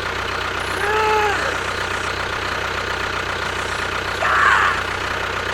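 Tractor engine idling steadily with a fast, even knocking beat. About a second in a short tone rises and falls, and about four seconds in there is a brief hiss-like burst.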